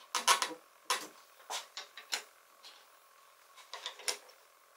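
Light wooden clicks and knocks as thin wooden runner strips and an MDF board are handled and set on the table saw's top, the strips seated in the miter slots. A quick cluster of knocks comes at the start, single ones follow about a second and two seconds in, and a few small taps come near the end.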